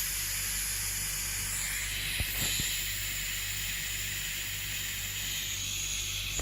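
Steady hiss of air rushing through a DIY compressor built from an old freezer compressor, over the low hum of the compressor running. The hiss starts suddenly, with two faint clicks a little over two seconds in.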